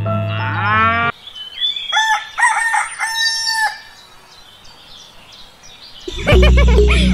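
Background music stops abruptly about a second in. A rooster then crows in a few pitched calls over about two seconds, and the music starts again near the end.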